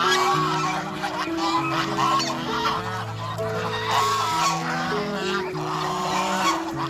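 Domestic geese honking over and over, several calls overlapping, over background music of slow held notes.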